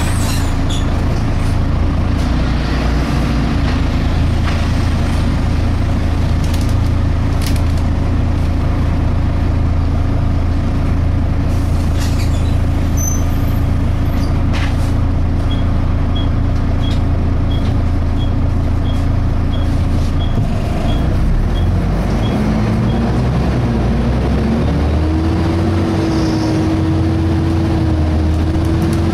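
Volvo B7TL double-decker bus heard from inside, its engine running steadily. About two-thirds of the way through, a whine rises in pitch over a few seconds and then holds steady, typical of the engine cooling fan speeding up. In the middle there is a row of light ticks, about two a second.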